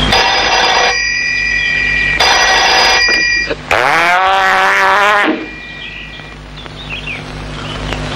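Desk telephone ringing twice, each ring lasting about a second, then picked up. A drawn-out pitched sound follows, rising and then wavering.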